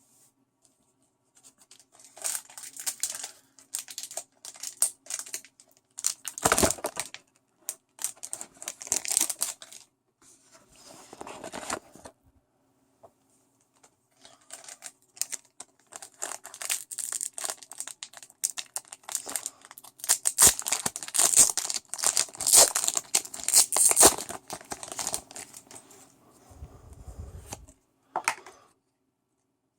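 Pokémon card booster pack's foil wrapper being torn open and crinkled in the hands, in two long spells of rustling and tearing with a pause between them.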